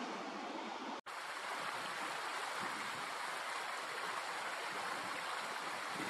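Steady rush of flowing stream water. It cuts out for an instant about a second in, then carries on unchanged.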